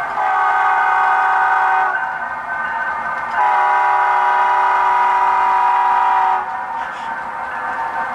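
Model diesel locomotive's horn, a steady chord of several notes, sounded twice: a short blast, then a longer one of about three seconds. The locomotive's engine sound runs steadily underneath.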